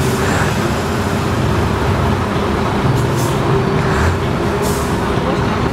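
Two semi-truck tractor units, a Scania and a Volvo, idling side by side at a drag-race start line, with a steady low engine rumble and a held whine. Two brief hisses come about three and about four and a half seconds in.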